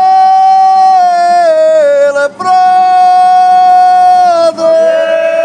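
A man's voice close by, with other men, singing a devotional procession hymn in long, loud held notes. Each note is held about two seconds and slides down at its end, with a short break for breath about two seconds in.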